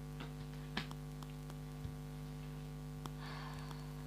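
Tarot cards being handled on a table: a few light clicks and taps, and a short rustle a little after three seconds in, over a steady electrical hum.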